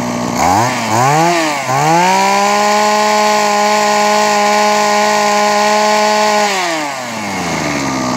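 Mitsubishi TB26 brush cutter's 26 cc two-stroke engine revved by hand from idle: two quick blips, then held steady at high speed for about four seconds before dropping back to idle.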